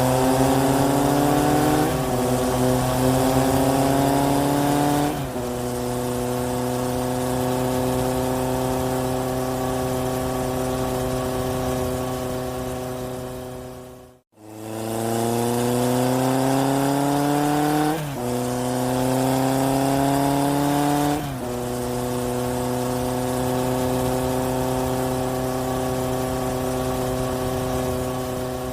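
A looped engine sound effect. The engine revs up with rising pitch through two shifts, then holds a steady pitch. The same roughly 14-second clip plays twice, cutting out briefly about halfway through.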